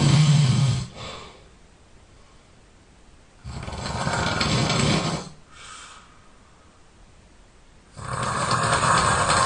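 A person snoring loudly in a slow, regular rhythm, about one snore every four and a half seconds, each lasting about two seconds and followed by a short, softer breath. One snore ends just under a second in, the next comes about three and a half seconds in, and a third starts about eight seconds in.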